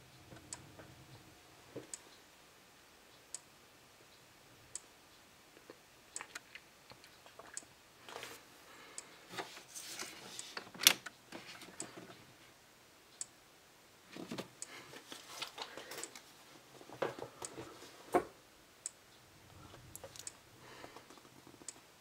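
Strobe on a Faraday 6120 horn/strobe firing with a faint click at each flash, evenly spaced at about one every one and a half seconds: an awful slow flash rate. There is no capacitor charging whine between flashes. Irregular rustling and knocks come and go, with one sharper knock near the middle.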